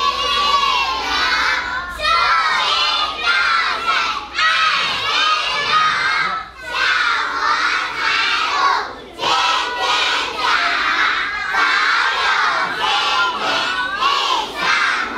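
A group of young children shouting and calling out together, many high voices overlapping, loud and nearly continuous with a couple of short lulls.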